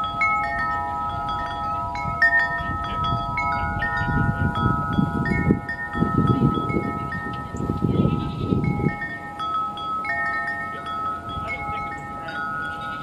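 Wind chimes ringing continuously, several overlapping tones with higher notes coming and going. A low gusty rumble of wind on the microphone rises between about 4 and 9 seconds in.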